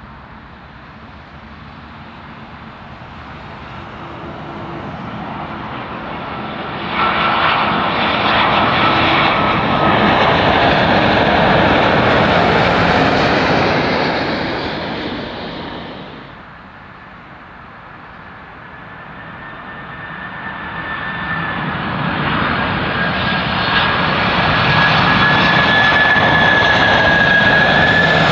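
Boeing 787 airliner on final approach passing low overhead: its jet engine noise builds to a loud rush with a high whine that slides slightly down in pitch, then drops away abruptly about sixteen seconds in. A four-engined Boeing 747 freighter on approach then grows steadily louder through the last ten seconds, a steady high whine over the engine rumble.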